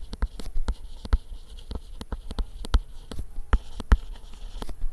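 Stylus tapping and scratching on a tablet while words are handwritten: irregular sharp ticks, several a second, over a low hum.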